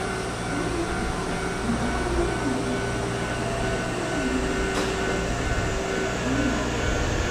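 Steady hum of a Hankyu Kobe Line electric commuter train at a station, with faint tones from its electric equipment that dip and rise a few times.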